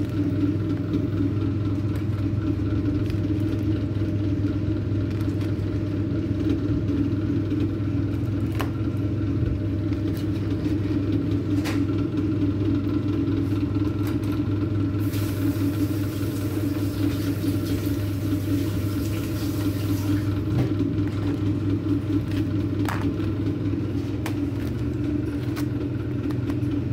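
A steady low mechanical hum from a kitchen appliance runs throughout, with a few faint light clicks. A soft hiss joins about fifteen seconds in and stops about five seconds later.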